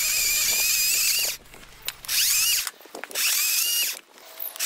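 Einhell GE-LC 36/35 LI 36-volt cordless chainsaw cutting a log: a high electric whine that runs steadily for over a second, then stops. It starts again in two shorter bursts and once more at the end, the pitch rising as the chain speeds up and falling as it slows when the trigger is released.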